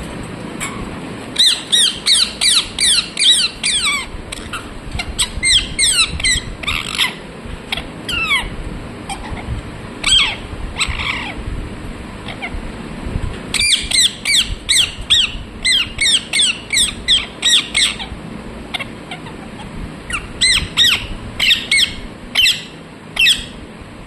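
Rose-ringed parakeet (Indian ringneck) screeching in about five bursts of rapid, shrill calls, several a second, each call a quick falling note, with short pauses between the bursts.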